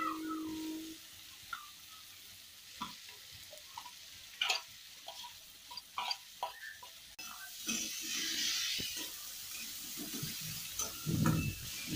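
Metal spatula stirring vegetables in an aluminium kadai, with scattered knocks and scrapes against the pan and food being scraped off a plate into it. After about seven seconds the frying sizzle comes up, and the stirring grows louder and fuller near the end.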